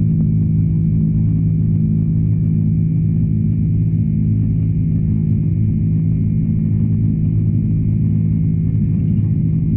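Steady low cabin drone of an Airbus A330-300's Rolls-Royce Trent 700 jet engines in flight, heard from a seat over the wing, holding a few constant low hum tones without change.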